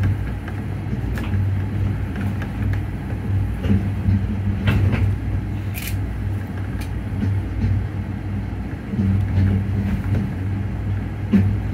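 Riding inside a Skyrail suspended car as it runs along its elevated guideway: a steady low rumble with a hum that swells and fades in stretches, and scattered light clicks and ticks, one sharper than the rest about six seconds in.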